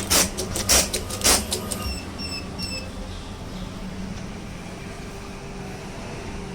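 Automatic tape cutting machine chopping: three sharp cutter strikes about half a second apart, the last of a five-piece cutting run. Two short high beeps from the machine's controller follow, then a steady low machine hum.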